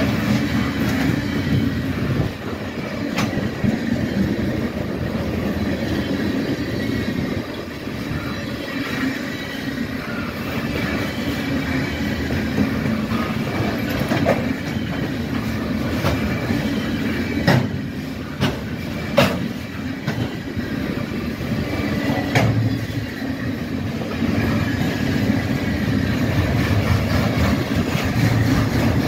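Freight train of loaded flatcars rolling past close by: a steady rumble and clickety-clack of steel wheels over the rail joints, with several sharp clanks, the loudest a little past halfway.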